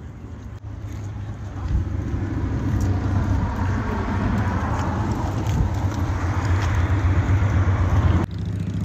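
Road traffic: a steady low motor-vehicle hum with road noise that grows louder about two seconds in.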